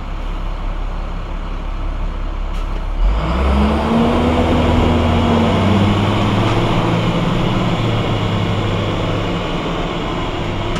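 Vehicle engine idling at a standstill, then accelerating away about three seconds in, its pitch rising, dropping back at a gear change and rising again, heard from inside the cab.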